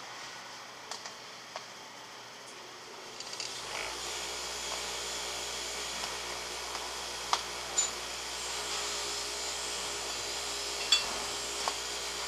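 Hands working three-strand rope into a grommet, with scattered sharp clicks and knocks of handling. About three and a half seconds in, a steady machine noise with a low hum comes on and keeps running under the handling.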